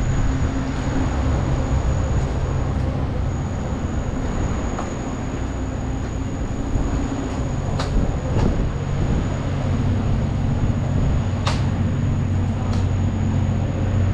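Steady low rumble of a train, with a few sharp clicks about halfway through and near the end.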